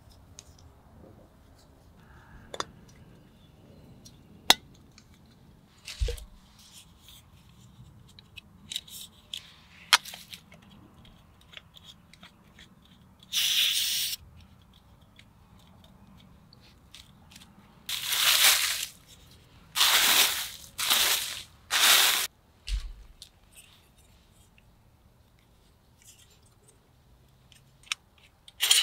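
Hands unpacking and assembling a Jetboil Flash camp stove: scattered plastic and metal clicks and knocks, two dull thuds as parts are set down, and four rasping scrapes of about a second each in the second half as the fuel canister and burner are pulled out and fitted together.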